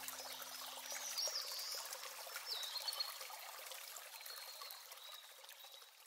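A small stream babbling, with a bird chirping twice about a second and two and a half seconds in. The last low notes of the harp die away in the first second or two, and the whole sound fades out near the end.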